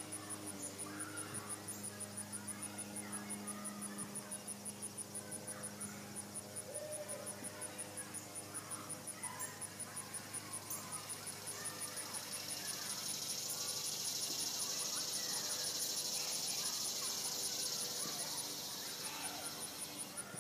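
Outdoor insect chorus: a steady, high, pulsing chirp throughout, with a louder high buzz that swells up a little past halfway and fades near the end. A low hum dies away after the first few seconds.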